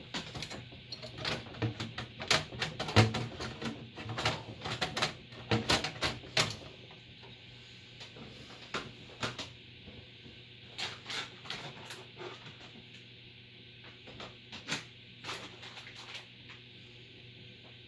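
Clicks and knocks of a motherboard being handled and fitted into a PC case, quick and dense for the first several seconds, then sparser.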